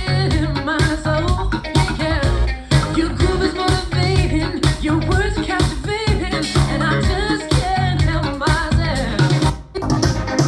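A pop song with a singing voice, strong bass and guitar, played back through a wireless speaker, with a brief drop near the end.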